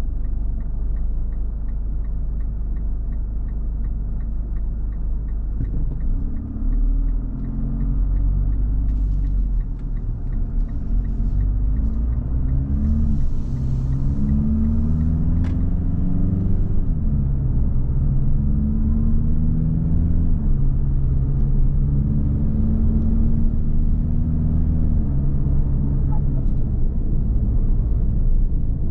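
Mitsubishi Delica D:5's turbodiesel engine pulling away and accelerating gently, its note rising and then dropping at each automatic upshift, with a steady ticking about three times a second in the first few seconds. Near the end, just after the shift into fifth, a brief 'buho' whoosh from underneath: turbo surge noise, which stopped once a leaking intake pipe joint was replaced.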